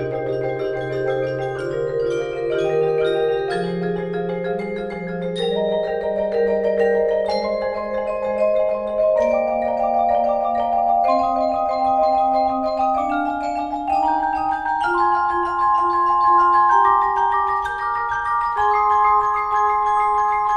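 Mallet percussion ensemble of marimbas and vibraphones playing sustained chords, with the bass line and harmony climbing step by step in pitch throughout.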